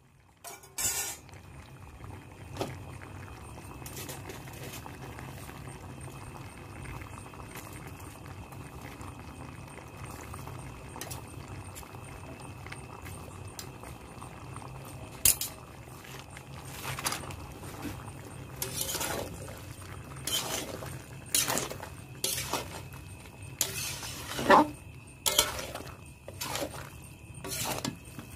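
Metal spatula knocking, clinking and scraping against a metal kadai as a prawn, pumpkin and greens stir-fry is stirred, the knocks coming irregularly and mostly in the second half, over a steady low background hum.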